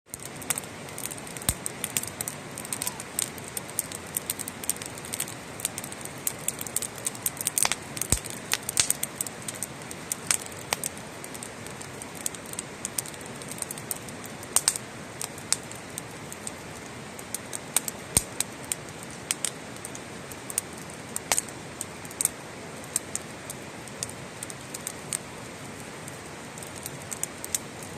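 Wood campfire crackling: irregular sharp pops and snaps over a steady hiss.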